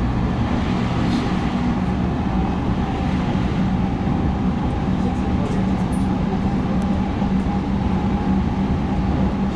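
JR Central 315 series electric train running at speed, heard from inside the car: the rumble of wheels on rail with a steady electric hum from the drive.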